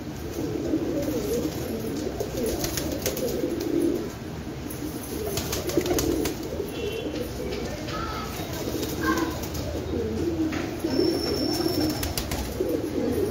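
A flock of domestic pigeons cooing continuously in overlapping low calls, with scattered short clicks among them.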